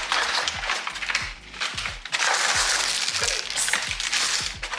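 Plastic grocery packaging crinkling and rustling as produce is handled, in two stretches with a short lull between. Background music with a steady beat plays underneath.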